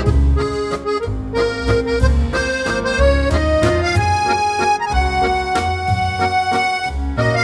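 Background music led by an accordion melody over a steady bass beat.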